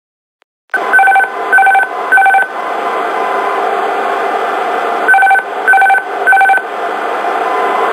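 Airbus A320 autopilot disconnect aural warning, triggered by pressing the side stick's autopilot disconnect push button. It sounds as groups of three short, equal beeps, one group about a second in and another near five seconds. Under the beeps runs a steady background hiss that starts just under a second in.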